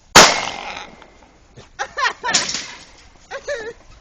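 A single gunshot about a quarter-second in, a sharp crack with a short decaying tail, fired at feral hogs in a trap cage. Short fainter calls follow later.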